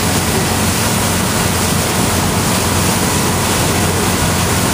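Motorboat running at speed: a steady, loud rush of wind and churned water, with a low engine drone underneath.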